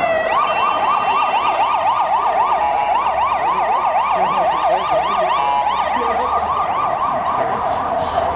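Emergency vehicle siren in a fast yelp, its pitch sweeping up and down about four to five times a second, with a brief steady tone every couple of seconds; it opens by sliding down from a held high tone into the yelp.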